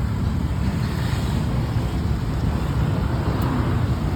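Steady rumble of a road vehicle running, with wind buffeting the microphone; no horn sounds.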